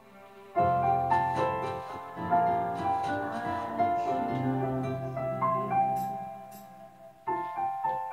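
Slow instrumental piano music with no singing: held notes and chords that ring out and die away, then a new chord near the end.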